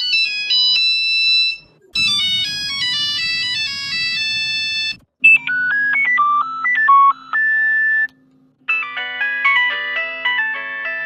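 Nokia mobile phone ringtones: short electronic melodies of quick single notes, one after another. Each lasts about three seconds, with a brief silence between them, and each has a different tone.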